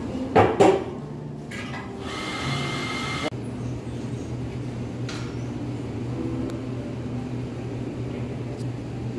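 Café background noise: two sharp knocks about half a second in, a brief hiss from about two to three seconds, then a steady low machine hum.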